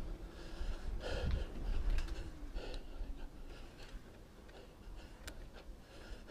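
A rider breathing while pedalling a bicycle, over a low rumble of tyres and wind, with a few light clicks. The rumble dies down in the middle and comes back near the end.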